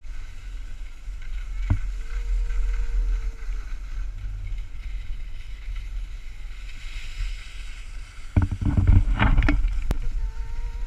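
Wind buffeting an action camera's microphone on a selfie pole as a skier glides down a packed-snow slope, with the skis hissing over the snow. A louder, rougher rush of ski scraping comes about eight to nine and a half seconds in.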